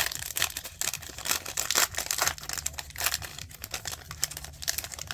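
Trading cards being handled and flipped through, with crinkling of the pack and quick papery strokes and clicks, busiest in the first three seconds.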